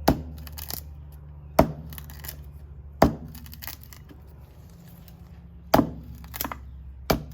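A Krate Tactical out-the-front knife with its blade jammed open striking wood: six sharp knocks, irregularly spaced about one to three seconds apart, the fifth lighter. A steady low hum runs underneath.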